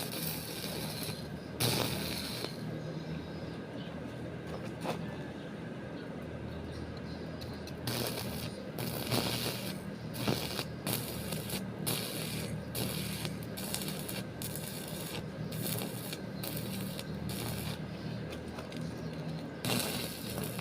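Hand-tool repair work: a run of irregular short scraping and clicking strokes, thickest in the second half, over a steady low hum.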